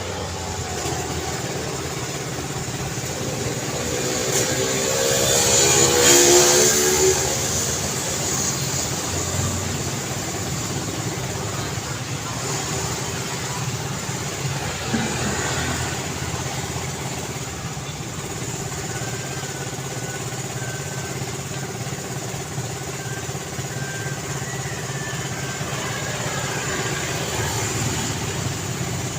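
Continuous road traffic noise with steady engine hum. About six seconds in a vehicle passes close by, growing louder and then dropping in pitch as it goes past.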